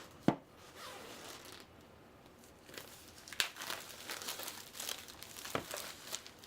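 Plastic shrink-wrap being torn and pulled off a pack of cardboard game boards: crinkling and tearing, with a sharp click just after the start and a few crisp snaps in the second half.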